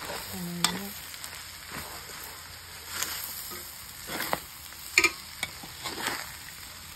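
Meat and fresh basil leaves sizzling in a hot wok while a metal spatula stirs and tosses them. There is a steady frying hiss, and the spatula scrapes and clanks against the pan at irregular intervals, loudest about five seconds in.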